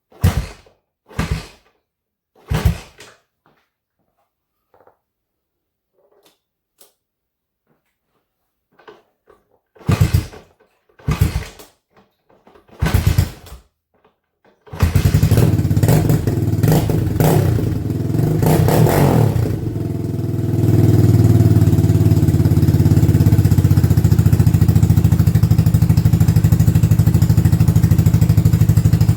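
1985 Honda ATC 200X's single-cylinder four-stroke engine being started: a few short bursts over the first 14 seconds, then it catches about 15 seconds in and keeps running. The revs rise and fall briefly a few seconds after it catches, and from about 20 seconds in it runs steadily and louder.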